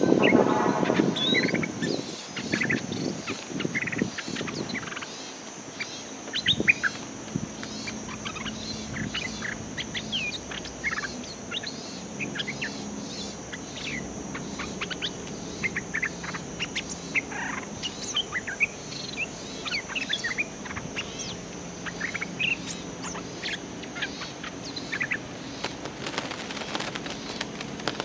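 Bulbuls calling: a harsh, rattling chatter in the first two seconds, then short, sharp chirps and call notes, some rising and some falling, coming every second or so, from a caged decoy bulbul and a wild bulbul challenging it at the trap. A steady high hiss runs underneath.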